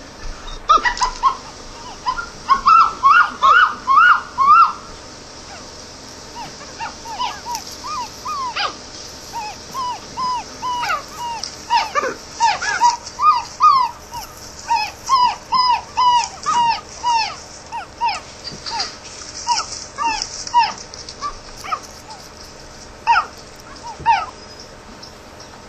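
Capuchin monkey calling in runs of short, high squeaking chirps, each rising then falling, several a second, with pauses between the runs.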